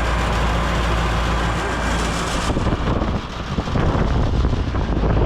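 Outdoor air-conditioner condensing unit running: a steady fan rush over a low compressor hum. About halfway through, the upper hiss cuts off abruptly and an uneven low rumble of wind on the microphone takes over.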